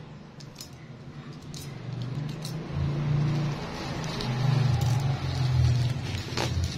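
Bubble-wrapped parcel being handled and turned over: the plastic crinkles, with scattered sharp clicks, over a low hum that shifts in pitch.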